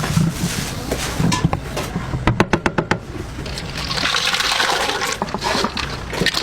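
Liquid rushing or pouring, with a quick rattle of about eight clicks in under a second about two seconds in.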